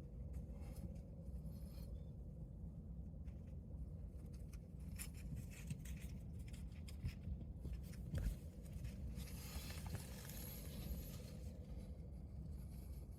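White-tailed buck snort-wheezing: a drawn-out hiss of air forced through the nose, lasting about two seconds a little past the middle, the rut threat call of a dominant buck. Scattered rustling and a thump come before it.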